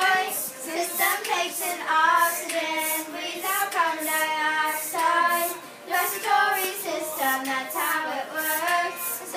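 A small group of children singing a melody together in unison, with held notes, over a steady beat of sharp ticks about twice a second.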